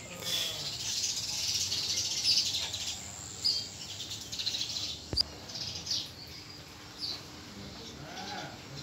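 Small birds chirping, short high calls repeating about once a second, over a steady high hiss of insects.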